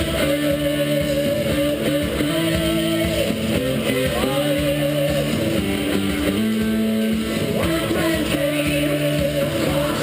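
Rock music with guitar playing continuously.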